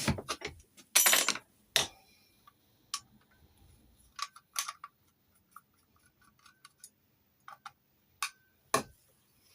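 Metal clicks and taps from a key and a Chubb lever lock being handled, with a short scrape about a second in, then scattered light clicks.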